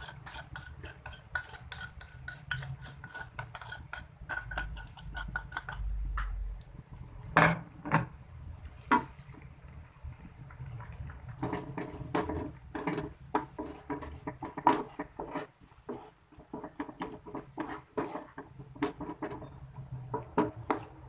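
A utensil stirring in cookware, with quick repeated clinks and scrapes. A few louder knocks come about seven to nine seconds in, then the rhythmic clinking resumes.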